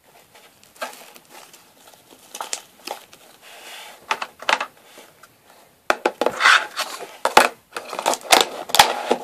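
Fluffy slime being stretched and squished by hand, giving irregular wet clicks and crackles that come thick and fast from about six seconds in.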